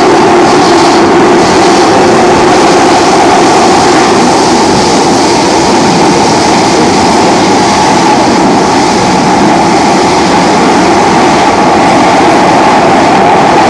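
Singapore MRT train running at speed, heard from inside the carriage: a loud, steady rumble and rail noise with a constant hum.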